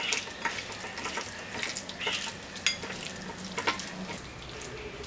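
A hand squeezing and kneading raw chicken pieces in a wet yogurt-and-spice marinade in a bowl: irregular wet squelches and squishes.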